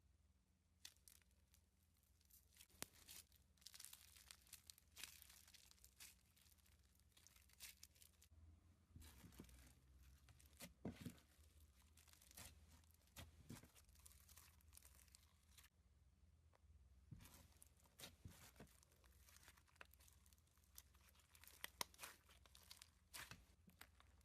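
Slime being squeezed and stretched by hand, giving faint, irregular crackling and popping clicks in clusters.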